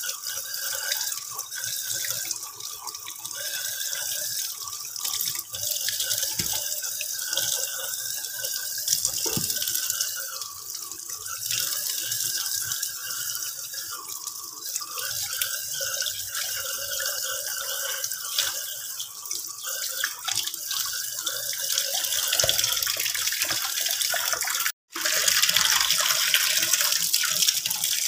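Tap water running into a stainless-steel kitchen sink as whole sea fish are rinsed and handled by hand, with splashing. The water sound breaks off for an instant near the end and comes back louder.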